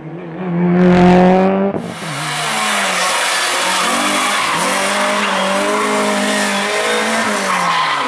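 Rally car engine at full throttle, loudest in a close pass about a second in. After an abrupt cut, the engine revs hard, its pitch rising and dropping repeatedly with gear changes.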